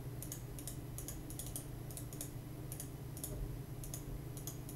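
Light, irregular clicks of computer input, a couple a second in loose clusters, over a steady low electrical hum.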